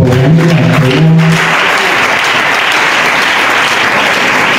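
A man's voice through a microphone holds a sung note, which ends about a second and a half in; then an audience applauds steadily.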